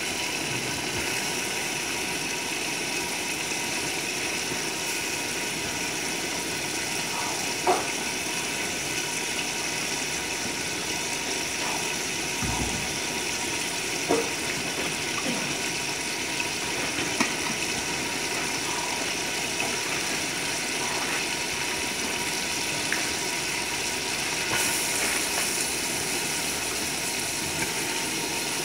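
Carrots and peas cooking in spiced oil and water in an open aluminium pot on the stove: a steady hiss with a few scattered soft pops.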